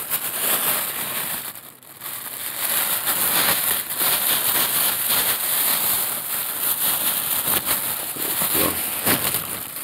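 Clear plastic bags crinkling and rustling as they are handled and rummaged through, a continuous crackling with a brief lull about two seconds in.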